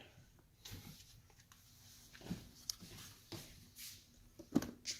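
Faint, scattered clicks and taps from handling the electric coffee grinder to look at the freshly ground coffee.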